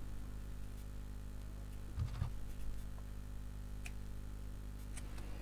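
Faint tabletop handling of cord and paper scissors: a few light ticks and a soft knock about two seconds in, then a sharp clack of the scissors at the very end.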